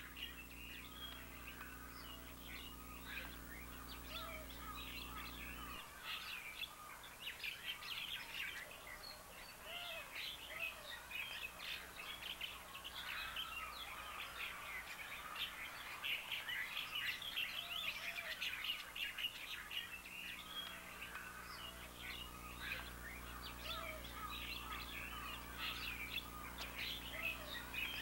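Many small birds chirping continuously in a dense chorus, with a lower short call recurring every few seconds. A steady low hum runs underneath for the first six seconds and again from about two-thirds of the way through.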